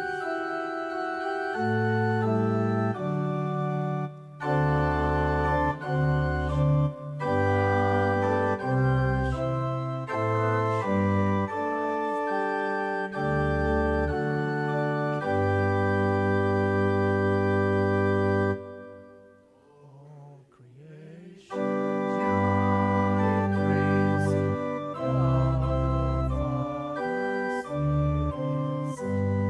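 Hymn accompaniment on an electronic keyboard with an organ sound: full held chords moving with the tune, breaking off for about three seconds a little past the middle between verses before starting again.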